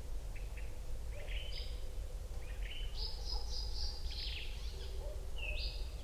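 Birds chirping in several short phrases over a steady low outdoor rumble.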